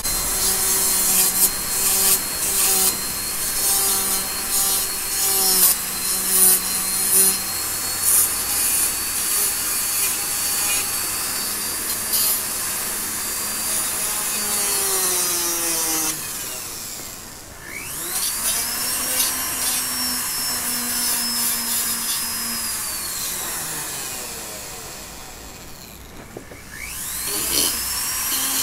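Foredom flexible-shaft rotary carver grinding a small wooden carving with a burr bit: a steady high motor whine over the rasping of the bit on the wood. Twice the motor is slowed almost to a stop, its whine falling away, then spun back up: about two-thirds of the way through and again near the end.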